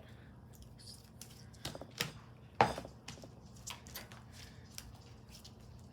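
Sticky slime being pulled and pressed by hand, making irregular small clicks and wet pops, the loudest about two and a half seconds in.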